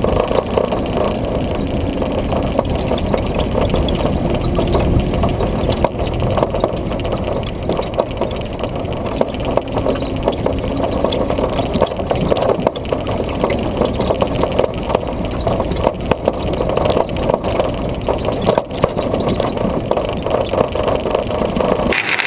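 Four-cylinder engine of a WWII-style military jeep running steadily while the jeep drives slowly, heard close up from the hood. The sound changes abruptly near the end.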